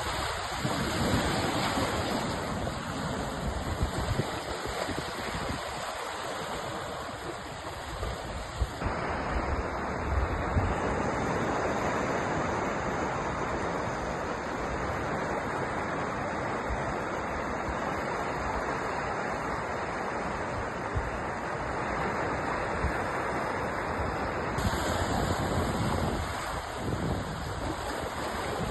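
Sea waves breaking and washing on a shore: a continuous rushing surf with gentle rises and falls in level.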